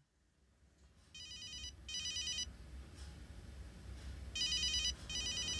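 Mobile phone ringing with an electronic ringtone: two short rings, a pause of about two seconds, then two more.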